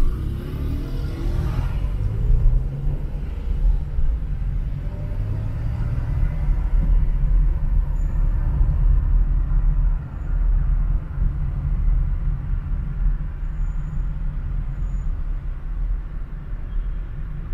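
A car driving through city traffic: a steady low rumble of road and engine noise, with a short drop in level about ten seconds in.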